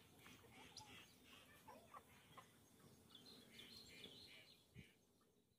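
Faint clucking of farm chickens, short calls scattered through, over a low background hiss.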